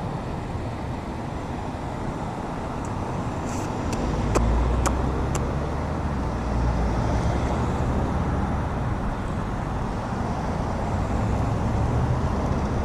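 Road traffic passing through an intersection, cars driving by, with a low rumble swelling about four seconds in and a few sharp clicks around then.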